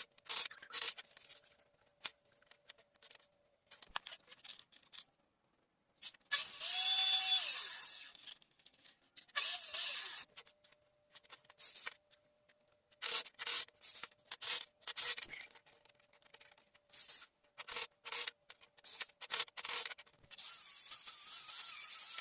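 Irregular short scraping and rubbing strokes of hand work on wood, some longer, others quick and clipped, over a faint steady tone.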